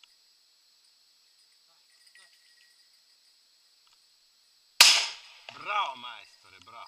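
A single shotgun shot about five seconds in, sudden and by far the loudest sound, ringing out briefly.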